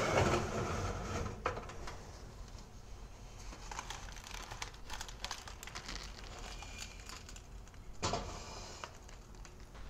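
A metal cake pan being lifted off an oven's wire rack with cloth towels: towel rustling and pan scraping at first, then quieter handling clatter with a few small clicks and a sharp knock about eight seconds in.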